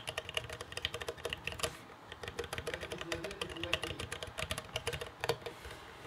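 Fast typing on a Planck mechanical keyboard with Cherry MX Brown switches: a dense, uneven stream of key clacks that thins out near the end.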